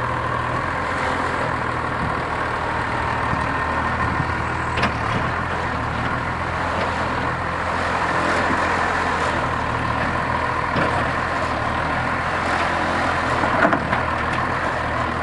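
Case 850G crawler dozer's diesel engine running steadily under load while the machine grades dirt, with a few short knocks about 5 seconds in and near the end.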